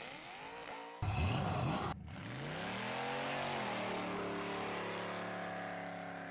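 Car engine clips cut together: revs falling, then a loud rough blast about a second in, then the engine revving up and holding a steady high rev.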